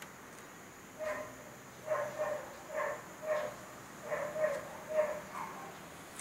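An animal calling: a run of about eight short, pitched calls in quick succession, starting about a second in.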